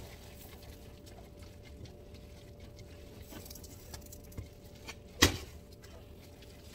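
Ramen noodles in sauce being stirred in a stainless steel saucepan, soft wet squishing and scraping of the utensil against the pan. About five seconds in there is one sharp knock as the pan is set down on the glass-top stove.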